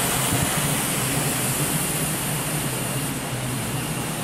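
Small model jet turbine of an indoor RC jet running with a steady hiss as the jet flies through a large hall.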